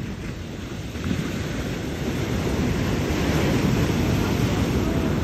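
Ocean surf breaking on a sandy beach, mixed with wind on the microphone; the rushing grows louder about a second in as a wave breaks.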